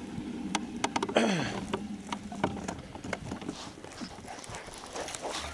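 An electric trolling motor hums steadily, then winds down and stops about a second in. After that come scattered clicks and knocks of fishing gear against a small plastic boat.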